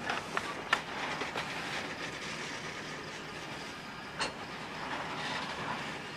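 Freight train of coal cars rolling past, a steady sound of steel wheels on rail with a few sharp clicks, the loudest just under a second in and another about four seconds in.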